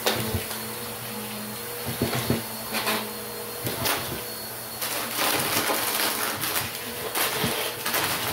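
Bissell upright vacuum cleaner running on a carpet, its motor humming steadily while it sucks up plastic bottle caps and fake coins. These rattle and clatter through the machine as sharp clicks in quick runs, thickest in the second half.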